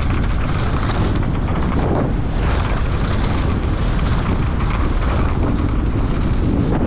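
Steady wind rumble on the microphone with gritty tyre noise and frequent small rattles from a mountain bike riding a dry, dusty dirt trail.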